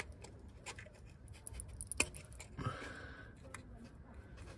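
A small metal pick clicking and scraping against the oil filter housing as it pries the old rubber seal out of its groove, with a sharper click about two seconds in.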